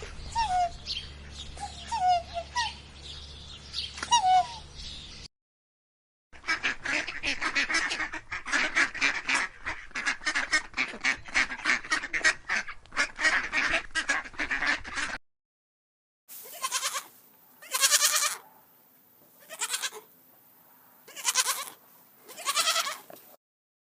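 A run of animal-sound clips. First, small birds chirping over a low hum. Then many overlapping calls in a rapid, dense chatter from a flock. Last, five loud, drawn-out calls with pauses between them.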